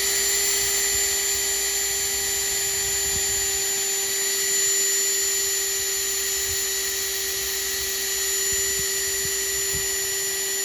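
Electric drill with a 5/32-inch metal bit running at a steady speed with an even, high whine, drilling out the mushroomed end of the rivet post on a die-cast toy car's base.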